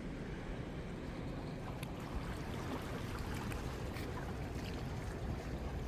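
Steady seaside background noise: wind and small waves lapping against the breakwater rocks, with a few faint ticks.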